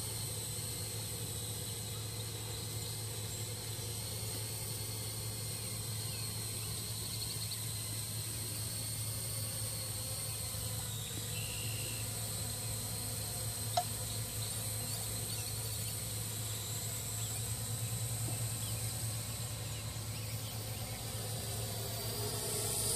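Parrot AR.Drone 2.0 quadcopter's electric rotors humming and whining steadily as it flies overhead, getting a little louder near the end.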